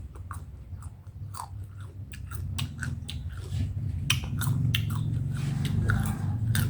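Crisp crunching bites and chewing of a raw, unripe Kaew mango, with many sharp irregular crunches that grow denser after about two seconds.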